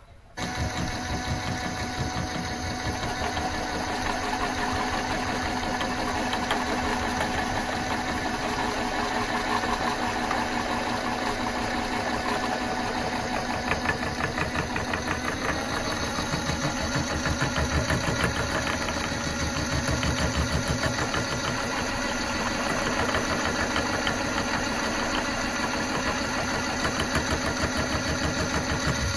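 Mini lathe running, with its spindle and rear change gears turning: a steady motor whine over a fast, even gear rattle. It starts abruptly about half a second in.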